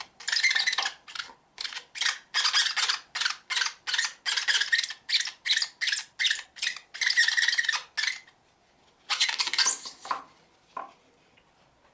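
Cloth rubbing Meguiar's polish onto the yellowed plastic cover of a solar light, making a squeaky-clean squeak. The strokes come quickly, about two or three a second, then stop about eight seconds in, and one longer squeaky stroke follows a second later.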